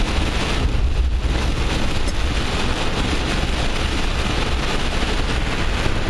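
Torrential rain pelting a slowly moving car, a steady hiss of rain and spray over a low road and engine rumble, heard from inside the cabin.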